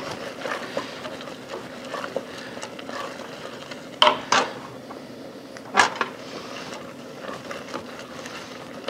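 Wooden spoon stirring starchy risotto rice in a stainless steel saucepan, scraping against the pot, with a few sharper knocks of the spoon on the pan rim about four and six seconds in.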